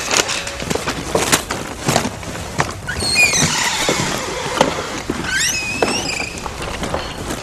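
A run of scattered knocks and clicks, with high squeals that slide up and down in pitch about three seconds in and again near six seconds.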